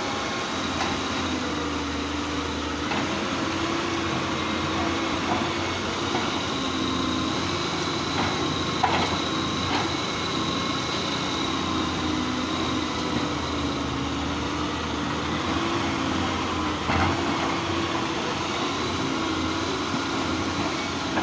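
Fiat-Hitachi FH150W-3 wheeled excavator's diesel engine running under digging load, its note rising and falling as the arm works, over a thin steady high whine. A few short knocks come through around the middle and again later.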